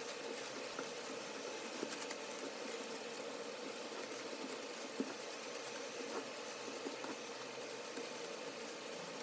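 Thin tissue paper rustling and crinkling as it is gathered and scrunched around a jar by hand, with small scattered crackles and one sharper click about halfway through, over a steady low hum.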